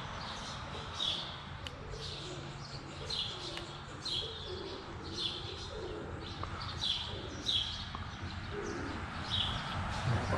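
A songbird calling over and over, a short high call about once a second, with softer, lower bird calls underneath in the middle.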